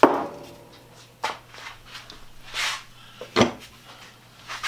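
Handling noises on a wooden workbench: a sharp clink with a short ring at the start, then a few duller knocks and a brief rubbing sound about two and a half seconds in.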